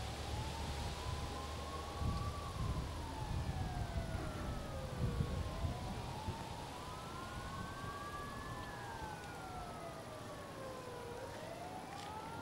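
Two emergency-vehicle sirens on a slow wail, each rising for about three seconds and falling for about three, out of step with each other. One is lower than the other. A low rumble sits under the first half.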